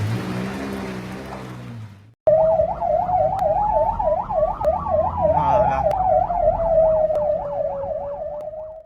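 A rushing noise with a low engine hum, cut off after about two seconds by an emergency vehicle siren. The siren warbles quickly up and down, about three times a second, while its overall pitch slowly rises and then falls.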